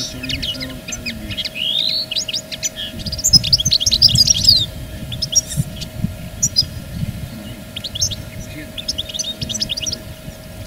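Small songbirds chirping and twittering in quick runs of short high notes and trills, with a faint steady hum underneath.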